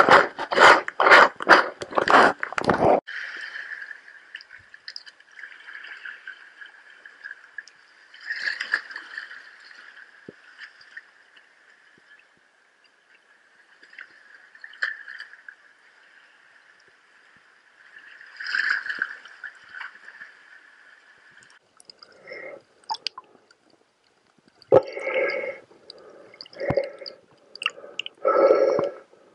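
Water sloshing and gurgling around the camera as it goes into the sea, with a run of loud rapid knocks and splashes in the first few seconds and more splashy bursts near the end.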